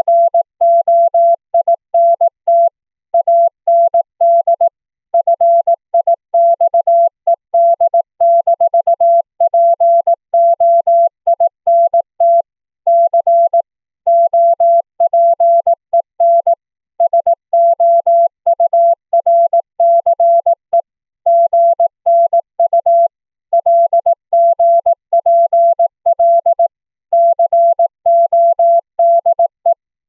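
Morse code (CW) sent by FLdigi software from a text file: a single steady-pitched tone keyed on and off in a fast stream of dots and dashes, with slightly longer gaps between words. It is heard after passing through a Linphone internet call coded with the BroadVoice BV16 voice codec.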